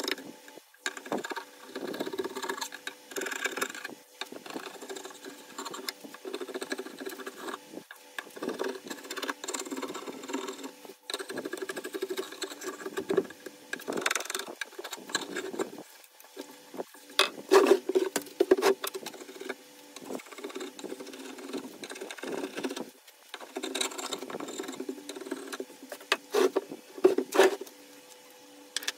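Dried glue squeeze-out being scraped off a glued-up hardwood board, in irregular scraping strokes with some sharper knocks.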